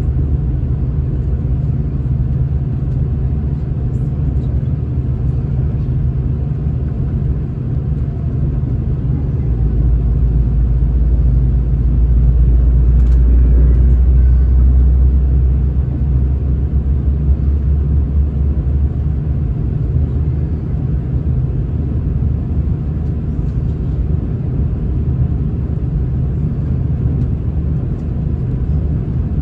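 Cabin noise of a V/Line regional diesel passenger train running at speed: a steady low rumble of wheels on track and engine, with a deeper hum growing louder for several seconds about a third of the way in.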